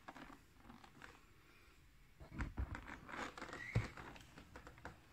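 Faint handling noises: a few light knocks and short scrapes of a cardboard box being turned in the hands, mostly in the middle of the stretch.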